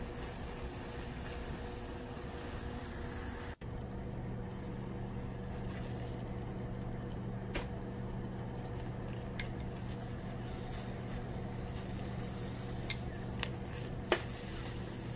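Steady hiss and low hum of eggplants cooking on a ribbed grill pan, broken by a brief dropout about three and a half seconds in. Metal tongs click against the grill a few times near the end, the loudest just before the end.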